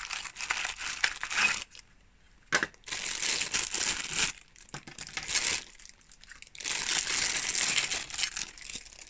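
Clear plastic packaging bags crinkling and rustling as they are handled, in several bursts with short pauses between.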